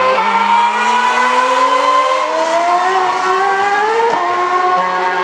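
Sauber C32 Formula 1 car's Ferrari 2.4-litre V8 accelerating away on a wet track, its pitch rising steadily with an upshift about four seconds in, over the hiss of tyre spray.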